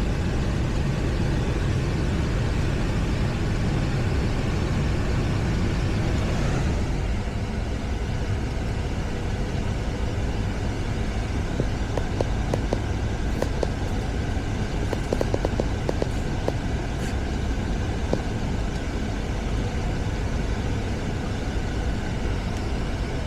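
Running air-conditioning condensing unit, its compressor and fan giving a steady drone with a low hum, with a few light clicks partway through.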